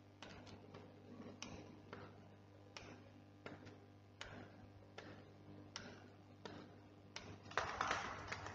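Slow, regular footsteps on hard stair treads, one sharp step about every three-quarters of a second over a low steady hum. Near the end comes a louder rush of quick scuffing.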